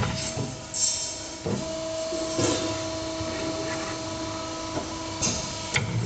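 Evaporator tube bending machine running: a steady hum from the machine with sharp clicks and knocks from its mechanism about a second in, at about two and a half seconds and near the end, and brief hisses in between.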